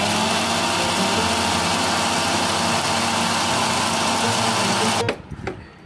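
Electric mixer grinder with a steel jar grinding soaked wheat grains, a loud steady whirring that cuts off suddenly about five seconds in.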